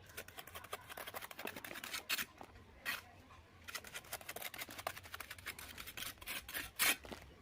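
A bricklayer's trowel scraping and tapping quickly on mortar and brick, with a few louder knocks about two, three and seven seconds in.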